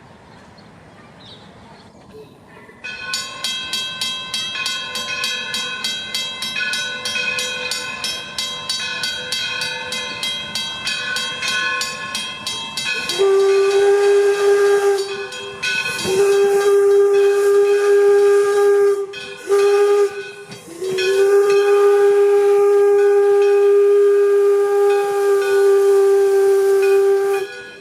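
Steam locomotive whistle on D&LN No. 7, an 1897 Baldwin 4-4-0, sounding four loud steady blasts, long, long, short, long: the grade-crossing signal. Before it, a fainter ringing tone pulses rapidly for about ten seconds.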